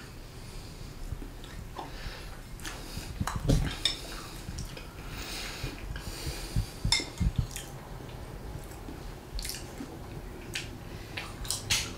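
Metal spoon clinking against a bowl as someone eats, light irregular clinks every second or so.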